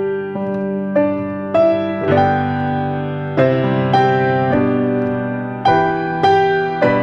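Slow instrumental piano music: chords and single notes struck about once a second and left to ring.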